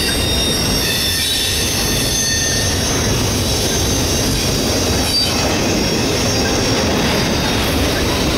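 Double-stack intermodal well cars rolling past close by: a loud, steady rumble of steel wheels on rail, with thin high-pitched squeal from the wheels.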